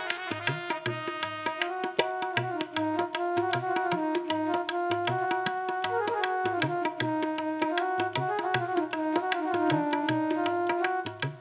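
Instrumental passage on an electronic keyboard: a melody of held and gliding notes over a steady tabla-style drum rhythm.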